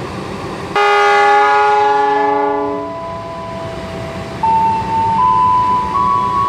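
Diesel locomotive horn sounding a loud chord about a second in, lasting about two seconds, as the train runs through the station. After it, quieter held tones step up and down in pitch over the rumble of the passing train.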